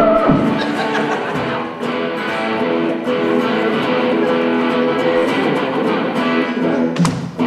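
Electric guitar strummed live through an amplifier, moving through chords, with a few sharp hits near the end.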